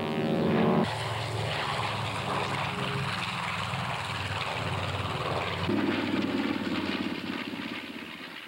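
Propeller aircraft engines at full power: first a pair of light single-engine planes droning past low. After an abrupt cut about a second in comes a B-25 Mitchell's twin radial engines running hard as it takes off and climbs, growing louder a few seconds later and fading near the end.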